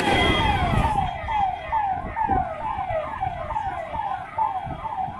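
Electronic siren sounding a fast repeating falling wail, nearly three sweeps a second, over a low rumble.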